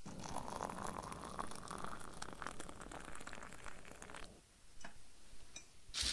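Tea being poured into a cup for about four seconds, the pitch of the pour rising as the cup fills. A few light clicks follow, then a sharper knock near the end.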